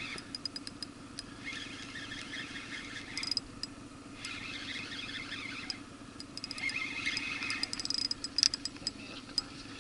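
Spinning reel being cranked in spells as a hooked fish is played in, giving rapid fine ticking and a scratchy whirr, over a low steady hum.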